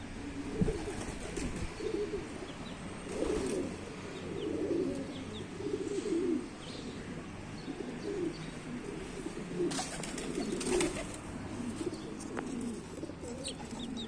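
Domestic pigeons cooing over and over in low, rolling calls, with a few faint high chirps and a brief clatter about ten seconds in.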